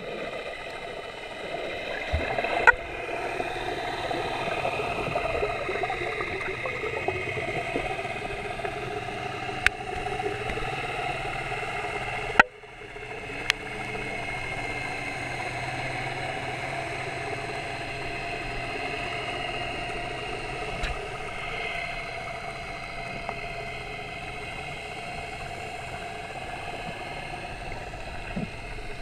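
Steady underwater drone with a few faint held tones, heard through an action camera's waterproof housing, like a motor carried through the water. Four sharp clicks cut through it, the loudest about twelve seconds in, followed by a brief dip in level.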